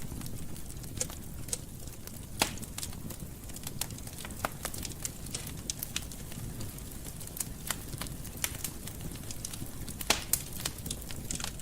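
Wood fire burning in a fireplace: a low, steady rumble of flame with irregular sharp crackles and pops, two louder pops about two and a half seconds in and near the end.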